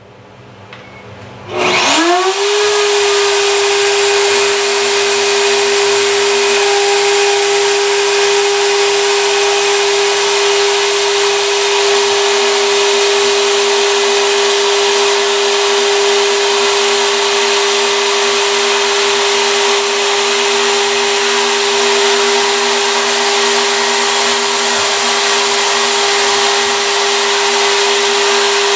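Router motor serving as a CNC spindle spins up with a rising whine about a second and a half in, then runs at a loud, steady high whine as the bit cuts into a wooden board. Fainter lower tones come and go underneath.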